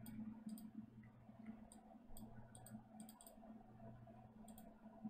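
Faint, irregular clicking of a computer mouse over a low, steady hum.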